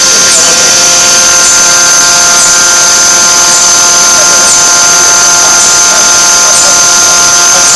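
Forging machine with a hydraulic press and electric-resistance heating, running: a loud, steady whine of several tones, with a light tick about once a second.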